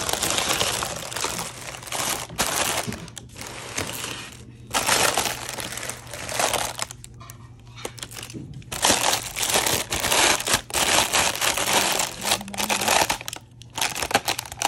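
Packaging being handled during an unboxing, crinkling and rustling in irregular bursts with short pauses between them.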